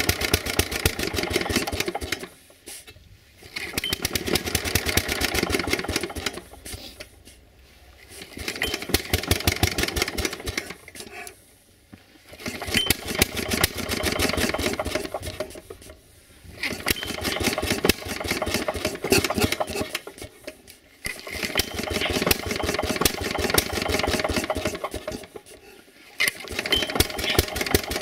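Lombardini LAP490 engine on a BCS 2000 walking mower running unevenly on a cold start: runs of rapid firing a few seconds long, each dropping away to near-quiet for about a second before it picks up again, about every four to five seconds.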